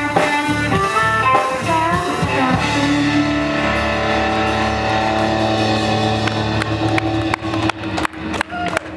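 Blues-rock band ending a song: electric guitar playing bending lead lines, then a held final chord ringing out while the drums hit a series of closing strokes near the end.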